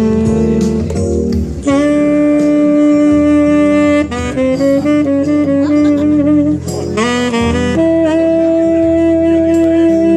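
Prestini Classic tenor saxophone in black lacquer playing a slow melody: long held notes, with a short run of notes stepping upward in the middle and another long held note near the end.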